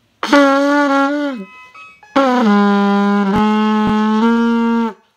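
Beginner trumpet practising scale notes: a short held note about a quarter second in, then a longer, lower note held for nearly three seconds that shifts slightly in pitch near its end. Two sharp clicks sound during the long note.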